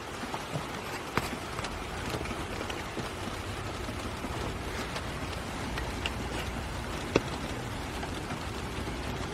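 Steady rain falling, with a few sharper drops ticking close by.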